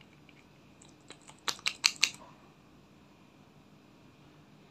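Glass nail polish bottle and its plastic screw cap clicking as the cap is twisted off and the brush drawn out: a few light ticks, then a quick run of about five sharp clicks about a second and a half in.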